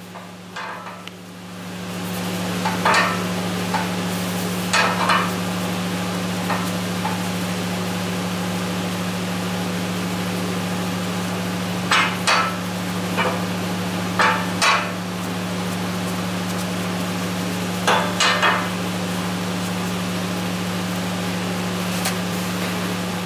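Shop towel wiping degreaser and grease off a painted steel axle knuckle, heard as short scrubbing strokes, often two in quick succession. Under them a steady low hum with a faint hiss sets in about two seconds in.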